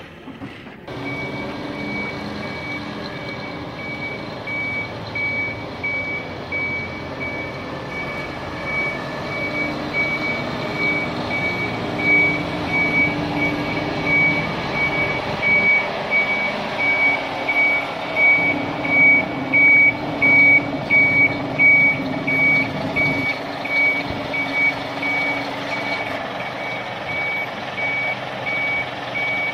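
Reversing alarm beeping at an even pace, starting about a second in, over the Scania R580's V8 diesel engine running: the truck is backing up.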